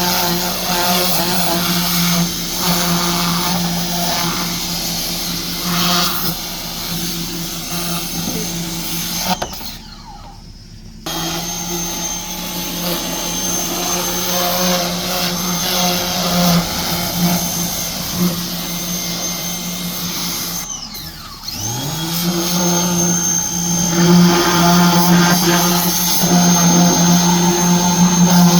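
Ryobi portable pressure washer's motor and pump running with a steady hum over a hiss. The motor cuts out for about a second and a half around ten seconds in and starts again. It dips briefly again around twenty seconds in, then spins back up with a rising whine.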